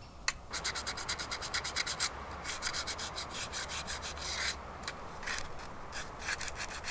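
Hand sanding of a carved wooden serving spoon: quick back-and-forth rubbing strokes, about eight a second, in runs broken by short pauses.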